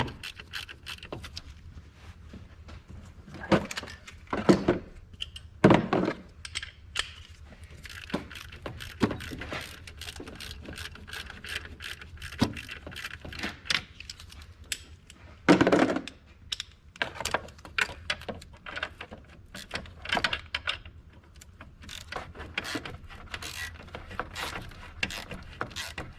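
Metal hand tools clicking and clinking against engine parts while the alternator belt adjuster bolt is worked, in irregular small clicks with a few louder knocks in the first six seconds and one about sixteen seconds in.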